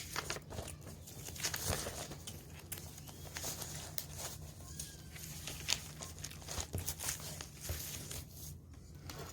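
Eating sounds: crinkling and rustling with scattered short clicks as a meal of fried rice is eaten, over a low steady hum.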